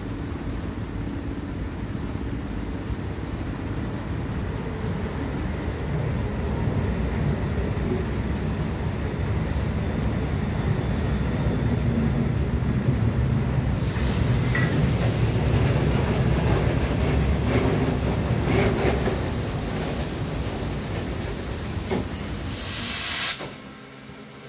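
Vintage passenger carriages hauled by a steam locomotive rolling past along a platform: a steady rumble of wheels on the rails that grows louder as the cars pass close. Loud hissing comes in about halfway through, and again later until it cuts off about a second before the end.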